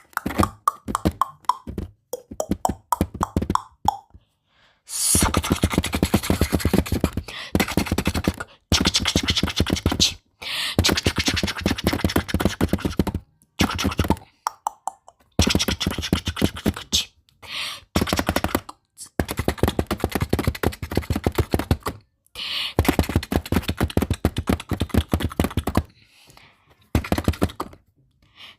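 Fingers tapping rapidly on a camera body, in quick runs of about one to three seconds broken by short pauses.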